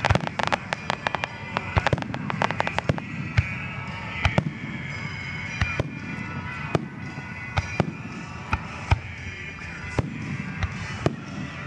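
Aerial fireworks going off. A rapid run of sharp bangs and crackles fills the first few seconds, then thins to scattered single reports.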